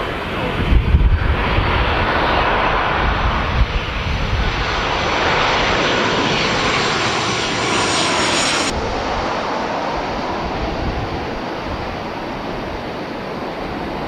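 Boeing 737-800 airliner with its CFM56 turbofan engines at approach power, passing low overhead on final approach. The jet noise swells to its loudest as the aircraft comes over, and the high hiss drops away suddenly about two-thirds of the way through as it moves off towards the runway.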